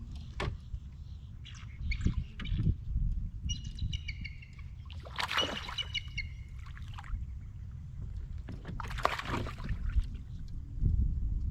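Outdoor sounds on a fishing kayak on a lake: a steady low rumble, a bird calling with a repeated high note a few seconds in, and two short rushing noises, one midway and one near the end.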